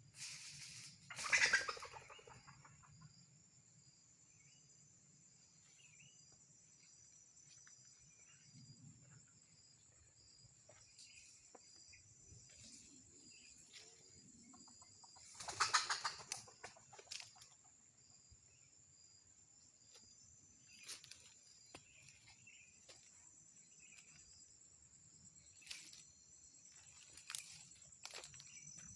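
Steady high-pitched drone of insects, with two loud noisy bursts about a second long, one near the start and one about halfway through, and a few fainter clicks and rustles between.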